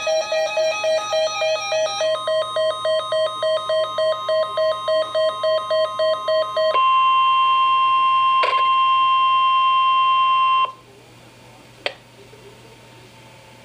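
Emergency Alert System alert tones for a flash flood warning: rapid electronic beeping at about four beeps a second, changing pitch about two seconds in, then a steady single alert tone just above 1 kHz for about four seconds that cuts off abruptly. A faint hum with a couple of clicks follows.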